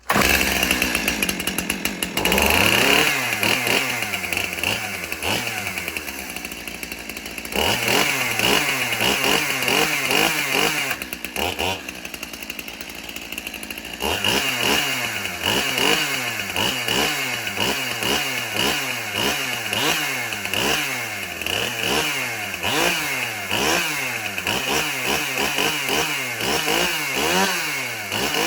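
Stihl MS 291 two-stroke chainsaw running after starting, revved over and over. It holds a high rev for a few seconds near the middle and drops back to idle. Then it is blipped in quick revs about once a second.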